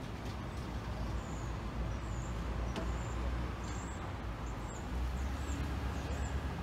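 Low traffic rumble on a residential street, swelling as a van drives past near the end, with short high bird chirps over it.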